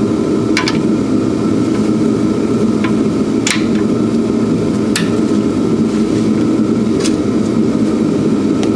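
Garage heater running with a steady hum, with a handful of short sharp metal clicks and clinks as a breaker bar and socket are worked on the lower shock-mount nut.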